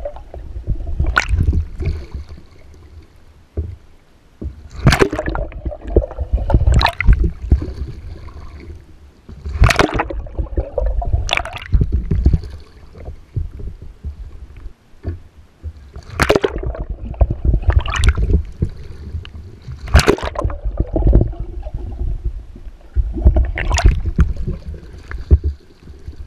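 Water splashing and gurgling as a kayaker capsizes and rolls the kayak back up, the paddle sweeping through the water. Sharp splashes come every two to four seconds over a low rumble of water washing over the deck-mounted camera.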